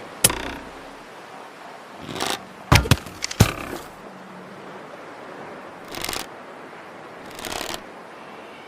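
Bow-and-arrow sounds: a sharp snap just after the start, a short swish at about two seconds followed by two sharp loud cracks about half a second apart, then two softer whooshes near six and seven and a half seconds.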